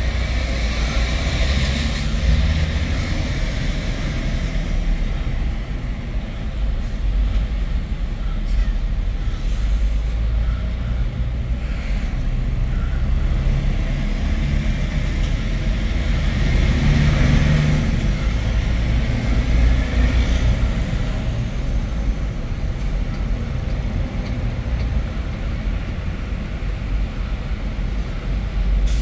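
Steady low road rumble heard inside a moving car's cabin, from its tyres and engine on a highway.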